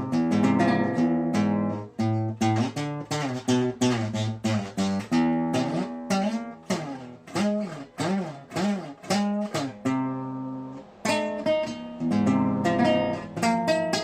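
Blues tune picked on a plucked string instrument: quick single-note runs with notes bent up and down, mixed with chords, and one held note that fades away about ten seconds in before the playing picks up again.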